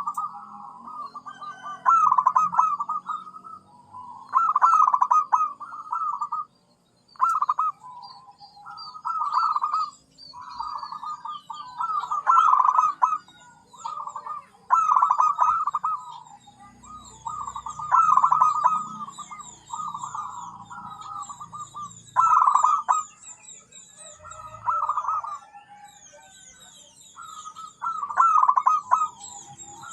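Zebra dove (perkutut) cooing over and over in short rolling, trilled phrases with brief pauses between them. Fainter high-pitched chirps from small birds run underneath.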